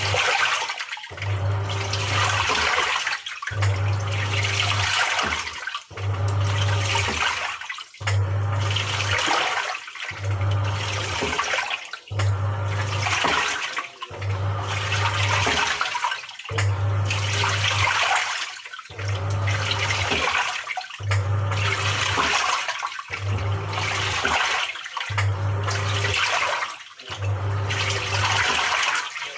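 Samsung 6.5 kg top-loader washing machine agitating a load: the motor hums and water sloshes in bursts of about two seconds, with a short pause between each as the pulsator changes direction.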